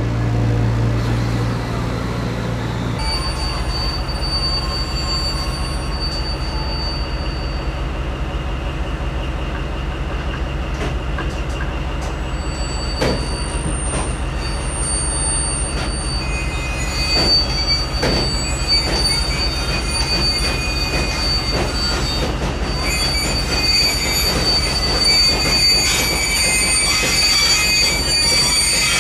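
Class 2143 diesel locomotive rolling slowly with its brakes squealing in several high, steady tones, the squeal growing stronger and more varied over the last third. Wheels click over rail joints from about the middle on, over a low steady engine hum.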